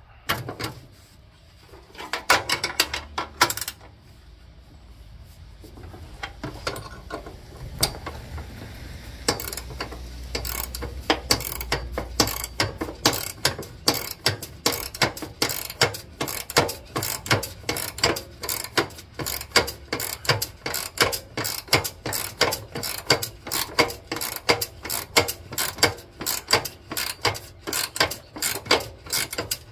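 Ratchet wrench clicking in repeated strokes as a seat mounting bolt under a lawn tractor seat is turned, settling into a steady rhythm of about two clicks a second.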